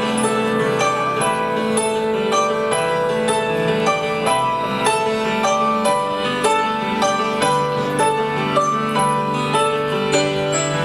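Live rock band music led by piano and keyboards, playing sustained chords and melody without singing.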